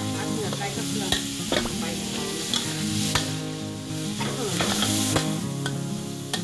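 Metal spatula scraping and clacking against a steel wok as sliced chicken is stir-fried with pounded garlic and chili in hot oil, with a steady sizzle underneath. The spatula strikes come irregularly, about every half second. This is the step where the chicken is fried with the paste until fragrant.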